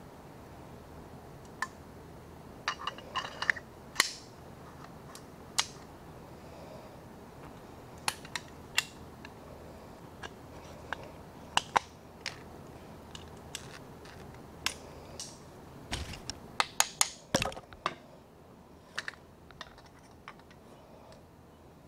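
Steel parts of an 1851 Navy percussion revolver clicking and clinking as it is put back together by hand: the cylinder on its arbor and the barrel fitted to the frame. Scattered sharp metal clicks, with a quick flurry of clicks and a couple of dull knocks on the bench about three-quarters of the way through.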